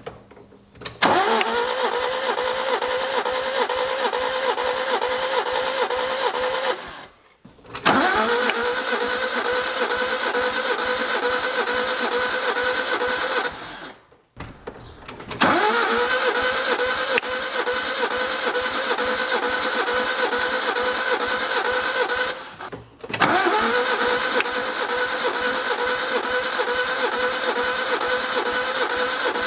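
Starter motor cranking the Alfa Romeo Giulia's four-cylinder engine with all the spark plugs out, for a compression test. There are four separate cranks of about six seconds each, and each spins up quickly to a steady whirr.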